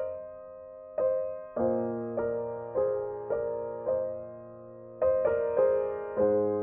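Slow, gentle piano music: single notes and chords struck about every half second, each fading away, with a brief pause partway through.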